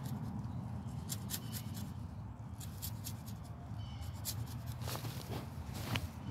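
A knife blade cutting notches into the exposed wood of a pine trunk, in short scraping strokes that come in clusters, to tap the tree for sap.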